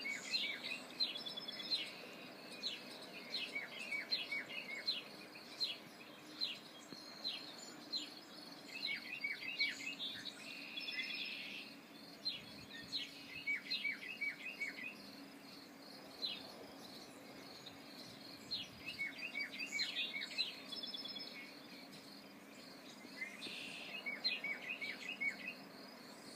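Songbirds singing: groups of short, quick chirping notes repeated every few seconds, over a steady low wash of surf.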